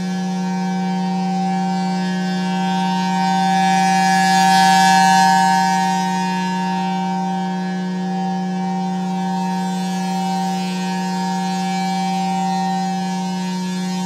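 Federal Signal Thunderbolt 1003 rotating outdoor warning siren sounding a steady tone at a constant pitch. It swells louder and brighter about five seconds in as the rotating horn turns toward the listener, then fades back.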